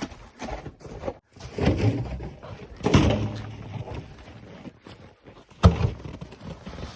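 Pieces of cut poplar firewood knocking against each other as they are handled and dropped, about four dull wooden thuds, the sharpest one near the end.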